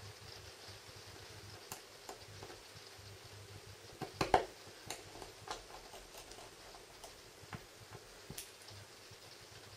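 Faint scattered clicks and ticks of a precision screwdriver turning the small screws into a Samsung Galaxy S4's frame, with a louder cluster of clicks about four seconds in.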